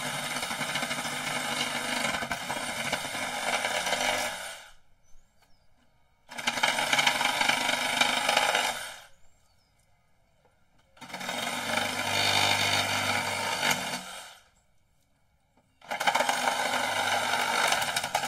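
DeWALT FlexVolt Advantage 20V cordless reciprocating saw cutting through wooden fence pickets, running in four separate cuts of a few seconds each with short stops between them.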